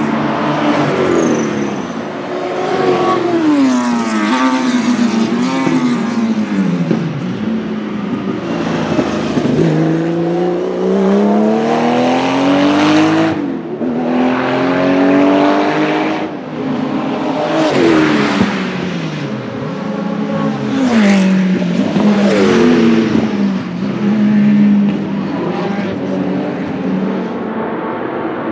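Porsche 935 K3's twin-turbo flat-six racing engine accelerating hard. Its pitch climbs and then drops at each gear change, again and again, with a brief lift-off about halfway through.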